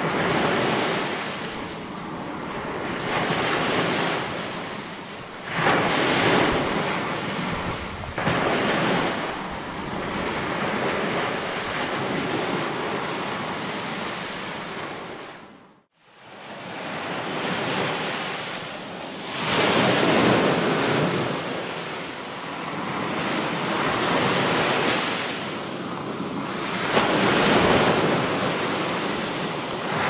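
Ocean waves breaking and washing ashore, a steady rush that swells and eases every few seconds. Midway through it fades briefly to silence and comes back in.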